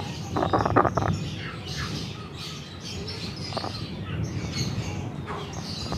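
Village chicken sick with chronic respiratory disease (CRD, 'ngorok') making rattling 'krok-krok' breathing sounds: a loud rasping burst about half a second in and a shorter one a few seconds later, the sign of mucus trapped in its throat that it cannot clear. High bird chirps are heard in the background.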